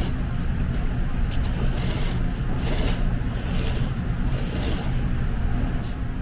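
Repeated wet slurps of thick wheat noodles sucked up from a bowl of pork-broth noodle soup (gogi-guksu), in short hissing pulls over a steady low hum.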